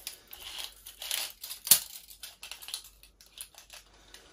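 Rustling, crinkling handling noises with one sharp click a little under two seconds in.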